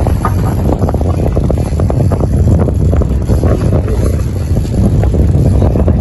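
Steady low rumble of a fishing boat running at sea, overlaid by wind buffeting the microphone.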